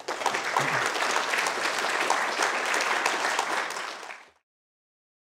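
Audience applauding, a dense patter of many hands clapping that fades out quickly about four seconds in.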